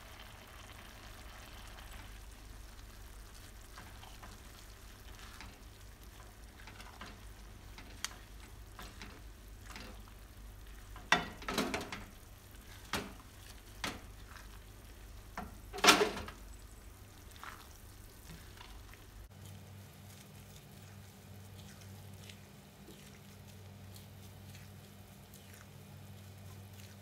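Diced potato, carrot and rice vermicelli cooking in a little liquid in a nonstick wok, with a faint steady simmer. A spatula stirs and scrapes through the mixture against the pan, with a few louder scrapes about eleven to sixteen seconds in.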